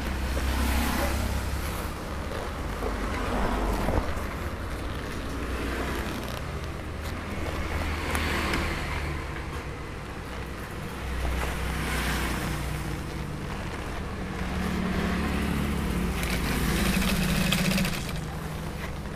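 Industrial sewing machine with an under-table motor humming steadily. Stretches of stitching come through, louder a little past the middle and again near the end, as a cowhide leather jacket is fed under the needle.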